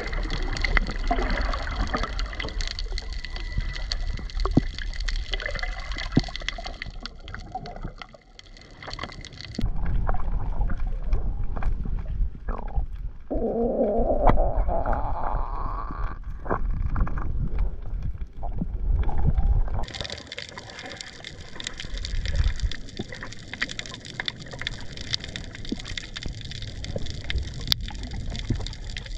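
Underwater sound on a coral reef: a steady wash of water noise with many small clicks and crackles, changing character abruptly about ten and twenty seconds in. Around the middle, a rising gurgle.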